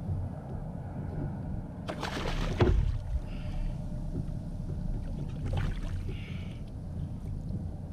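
Water sloshing and splashing against the side of a kayak on open sea, over a steady low rumble. Louder splashes come about two seconds in and again at about five and a half seconds.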